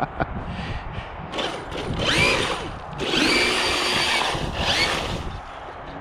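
Electric RC monster truck's motor and drivetrain whining, rising in pitch as it speeds up, twice, with a held high whine in between.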